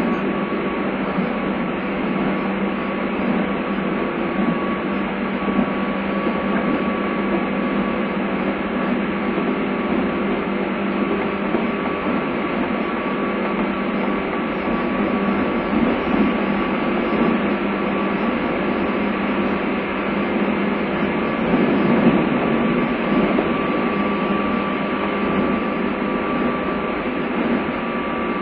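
Running sound inside a JR East 201 series electric commuter train: a steady wheel-on-rail rumble with faint steady tones running through it. It sounds dull and thin at the top, as recorded on a phone's voice recorder.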